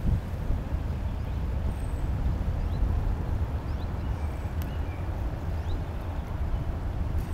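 Wind buffeting the microphone, a low uneven rumble, with a few faint, short bird chirps over it.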